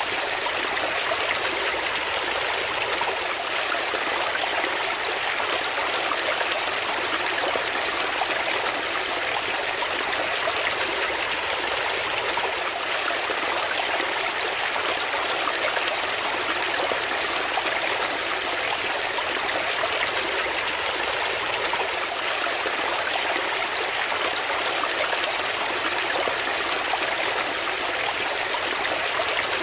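Small brook running over rocks in little cascades: a steady rushing and splashing of water, mostly a high hiss with little low rumble, unchanging throughout.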